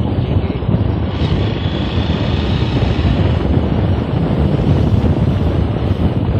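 Wind buffeting the microphone of a camera riding on a moving Hero Xpulse 200 motorcycle, a loud, uneven low rumble, with the bike's single-cylinder engine running underneath.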